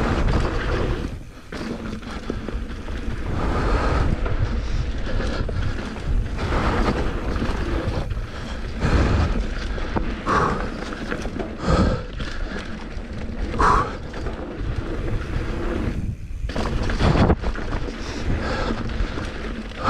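Mountain bike running fast down a packed-dirt trail: steady wind rumble on the camera microphone with knobby tyres rolling over dirt and loose rocks. Several sharp thumps where the bike hits bumps and berms.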